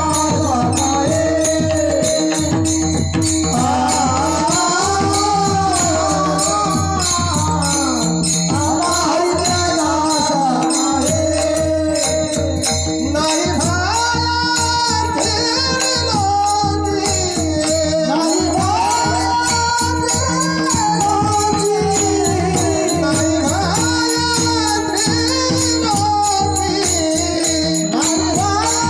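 Marathi kirtan singing: one voice sings a devotional melody in long, sliding phrases over a steady drone, with jingling percussion keeping a regular beat.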